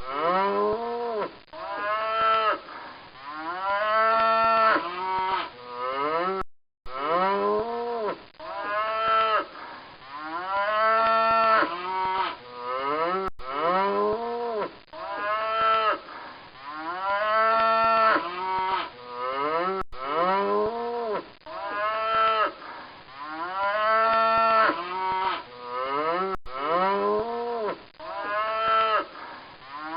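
Cow mooing: a run of drawn-out moos that rise and fall in pitch. The same short recording repeats about every six and a half seconds, with a brief break between repeats.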